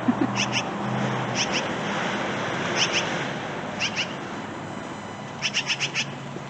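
Crow calling in short, sharp notes, mostly in pairs, ending in a quick run of about five.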